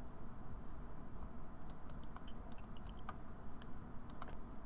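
Light, irregular clicks of a computer mouse as arrows are drawn on an online chessboard, over a low steady hum.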